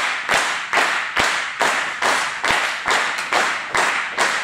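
Audience clapping in unison to a steady beat of about two and a half claps a second, each clap echoing in the hall, urging on a weightlifter as she steps up to the bar.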